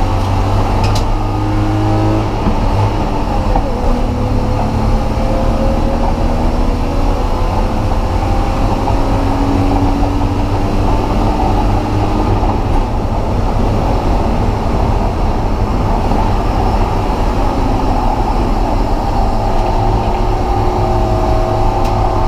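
A motor vehicle driving at steady speed: a continuous low engine and road rumble, with slight rises and falls in engine pitch.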